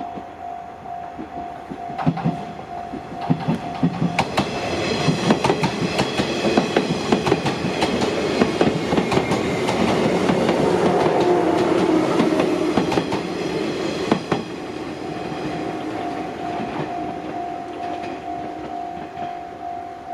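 Railway level-crossing alarm ringing in a steady repeating beat while an electric train passes over the crossing, its wheels clicking over the rail joints. The train is loudest about ten to twelve seconds in, and the alarm rings clear again as it moves away.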